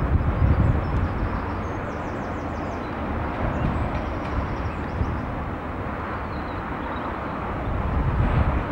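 Outdoor ambience: a steady rushing noise, with wind buffeting the camcorder microphone in low gusts at the start and again near the end.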